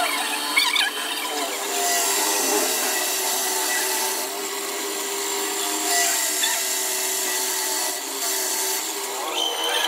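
Metal machining: a lathe cutting a steel bar briefly, then a drill press boring into the end of a steel tube, a steady machine hum with a high cutting noise.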